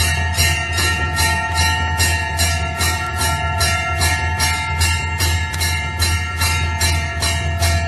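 Temple bells ringing in a fast, even rhythm of about three strokes a second, as at an aarti, over a steady held ringing tone.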